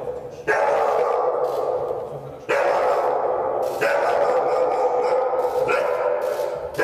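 A dog barking loudly in a run of outbursts. Each starts suddenly and runs on for a second or two, with a new one every one to two seconds.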